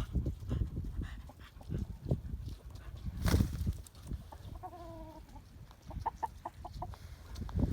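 Domestic chickens clucking in short calls, with one longer drawn-out call about five seconds in. A loud sudden rustle or bump comes near the middle, over a low rumble.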